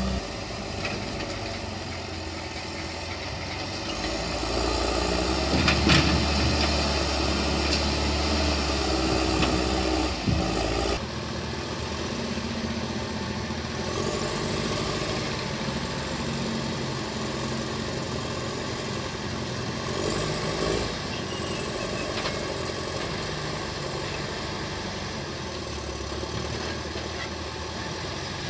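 Heavy diesel engines of log-handling wheel loaders running, louder for a few seconds with two sharp knocks, then a steadier sound after an abrupt change about eleven seconds in, where a Caterpillar 950 wheel loader's engine runs beside a log truck.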